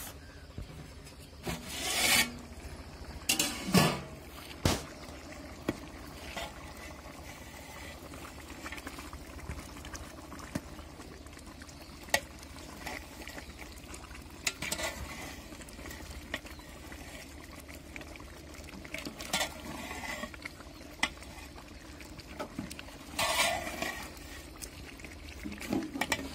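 Scattered metal clanks and scrapes of a long steel ladle and the lid on a large aluminium biryani pot as the rice is uncovered and stirred, a cluster of knocks early on and a few more later, over a steady low rumble.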